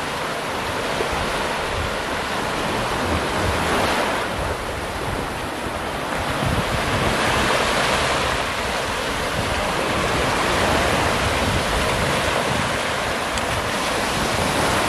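Small sea waves breaking and washing up on a sandy shore, surging every few seconds, with wind rumbling on the microphone.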